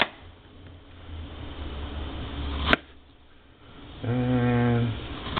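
Kitchen knife slicing through a plantain onto a plastic cutting board, the blade knocking sharply on the board about two and a half seconds in. Near the end a man hums one short, steady note.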